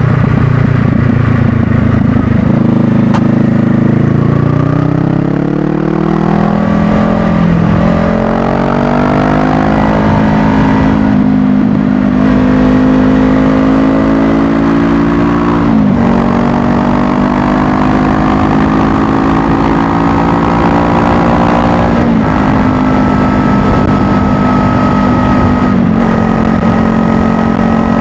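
Honda Rebel 500's parallel-twin engine accelerating up through the gears. Its pitch climbs, then drops sharply at each of about five upshifts. After the later shifts it runs at a steadier cruising pitch.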